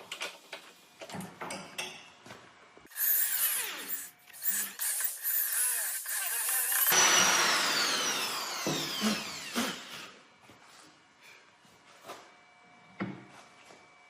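A power tool runs for about four seconds with a loud high hiss and a steady tone, then is switched off and winds down with a falling whine over about three seconds. Light knocks and handling sounds come before and after it.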